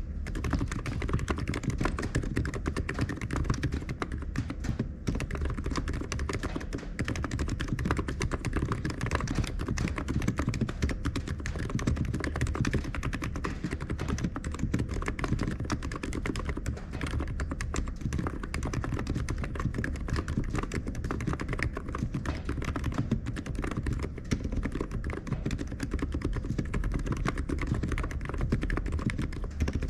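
Continuous typing on an ABKO KN30BT computer keyboard: a fast, steady stream of key clicks.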